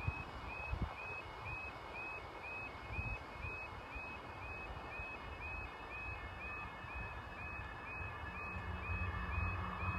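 Level crossing audible alarm sounding a short, repeating high tone about three times a second while the barriers are down. About eight seconds in, a low rumble with a steady hum starts to build: a Class 175 diesel multiple unit approaching.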